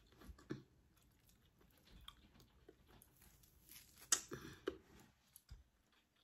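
A person chewing pork meat torn from a cooked bone, quietly, with wet mouth smacks and scattered soft clicks; one sharper click about four seconds in is the loudest sound.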